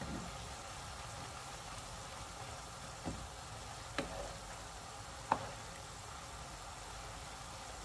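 Noodles, vegetables and duck breast sizzling steadily in a hot pan as they are stir-fried with a wooden spatula, with three sharp knocks of the spatula against the pan about three, four and five seconds in, the last the loudest.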